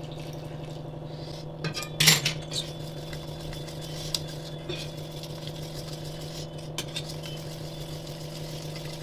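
Wire whisk beating a thin batter in a stainless steel bowl, the wires clinking against the bowl's side, with one louder metal clank about two seconds in. A steady low hum runs underneath.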